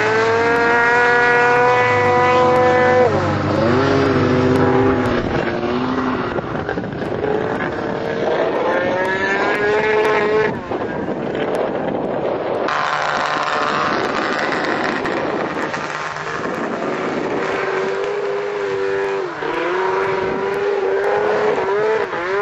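Snowmobile engine running under varying throttle, its note held high at first, dropping about three seconds in, and climbing again later.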